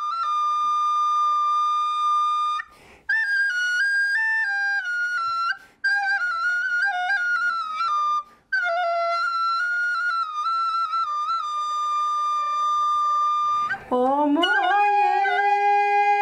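Plastic recorder playing a slow folk melody in long held notes, with brief breaks for breath. About 14 s in, a woman's voice joins underneath, singing along.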